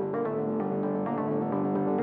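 Background music: an electronic keyboard track with a steady rhythm of short repeated notes.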